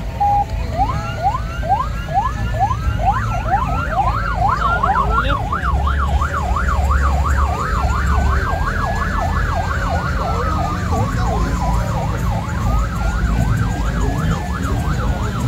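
Electronic emergency-style siren on a show van sounding. A rising wail gives way to a fast yelp of about four sweeps a second, then returns to slow rising-and-falling wails. A low rumble runs underneath.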